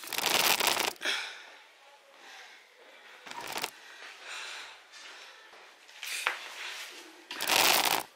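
Rustling handling noise on the recording device's microphone as it is touched and adjusted close up: a loud burst at the start, a brief one near the middle and another near the end, with faint voices in between.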